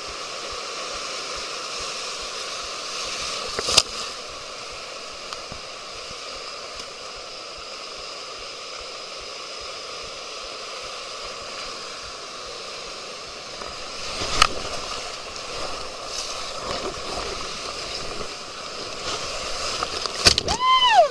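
River water rushing steadily, the sound of moving whitewater. Two sharp knocks cut through it, about 4 seconds in and about 14 seconds in, and a short call that bends in pitch comes just before the end.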